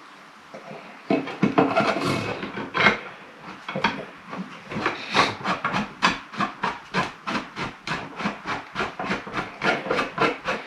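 3D-printed PLA vise parts clicking and rubbing as they are worked together by hand. The clicks start about a second in and settle into an even run of about four a second.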